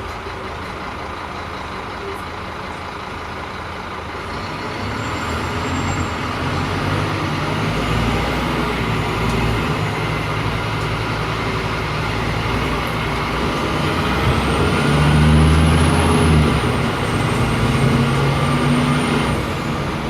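Scania K310 articulated city bus's diesel engine and ZF automatic gearbox under way. The engine is fairly quiet at first, then builds about four seconds in and changes pitch several times as it pulls, loudest about three-quarters of the way through.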